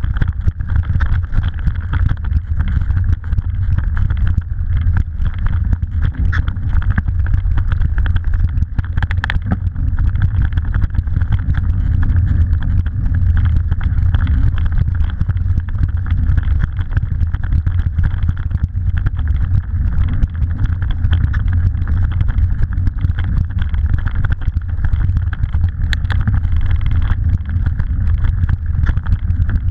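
Steady loud rumble of wind buffeting an action camera's microphone while a bicycle rolls over a bumpy grass track, with a couple of sharp knocks from the bike over bumps.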